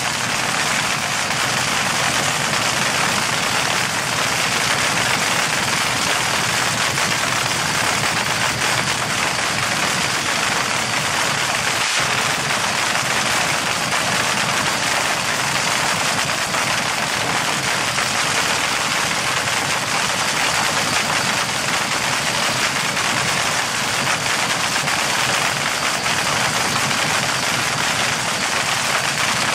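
Nitromethane-fuelled dragster engine running steadily at idle, loud and unbroken, as a fast even train of firing pulses.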